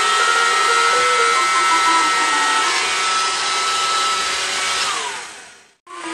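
Roomba robot vacuum playing a tune as a string of short electronic notes, driven by MIDI data sent over its serial port, over the whir of its own motors. About five seconds in, a high steady whine drops in pitch as the sound fades out; after a brief silence the whir and the notes start again.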